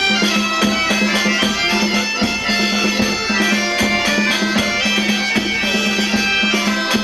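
Galician bagpipes (gaitas) playing a tune over a steady low drone, with drum beats.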